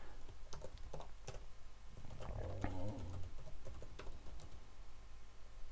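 Computer keyboard typing: scattered, irregular keystrokes as code is entered, with a brief low hum about two seconds in.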